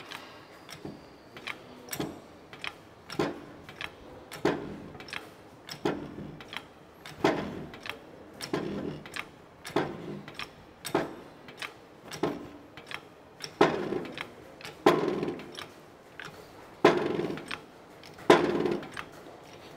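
Shop press being worked stroke by stroke to push a transmission clutch pack down its shaft: a regular series of metal clacks, about one every two-thirds of a second, growing louder toward the end.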